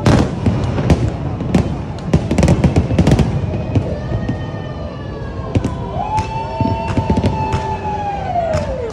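Fireworks going off: a rapid run of sharp bangs and crackles that thins out about four seconds in. Long whistling tones follow, one holding steady for a couple of seconds before sliding down in pitch near the end.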